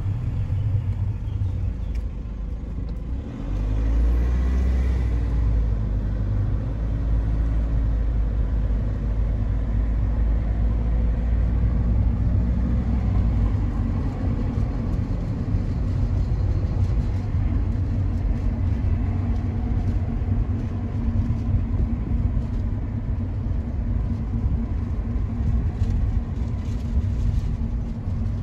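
Mercedes car driving, heard from inside the cabin: a steady low rumble of engine and road noise that grows louder about three and a half seconds in.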